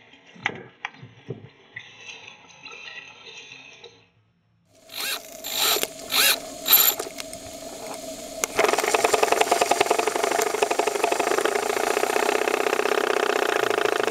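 Miniature steam engine of a model steamboat starting at normal speed: a few separate loud bursts, then it catches and runs steadily with a fast, even beat.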